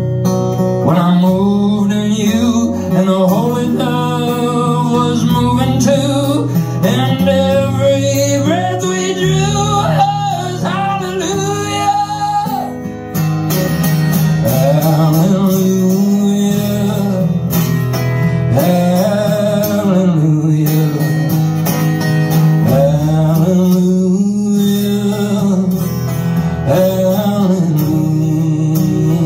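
A man singing with his own strummed acoustic guitar, a solo live performance through a PA.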